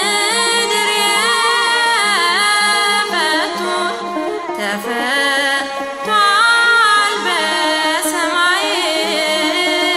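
A woman singing an Ethiopian Orthodox hymn (mezmur) over instrumental accompaniment, her voice sliding and bending through long ornamented notes above a steady low drone.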